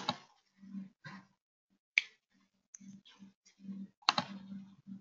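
Computer keyboard typing: irregular key taps with a few sharper clicks, the loudest about two and four seconds in.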